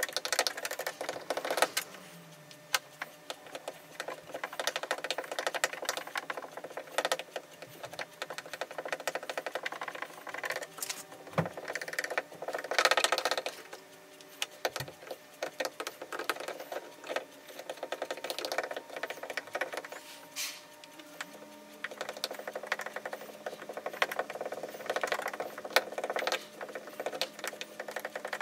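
Rapid crackling and ticking of a hot plastic-welding iron tip worked into a polyethylene water tank, melting polyethylene filler into a repaired crack. The crackling comes and goes every few seconds as the tip is pressed in and lifted off.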